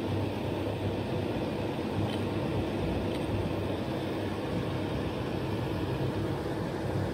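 Steady low machinery hum, unchanging throughout, with two faint ticks about two and three seconds in.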